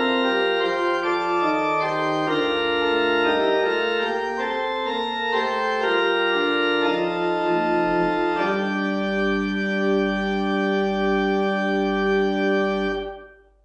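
Pipe organ playing a chorale prelude: moving chords, then about two-thirds of the way through it settles on a long held final chord with a slight wavering in the low notes, which dies away abruptly near the end.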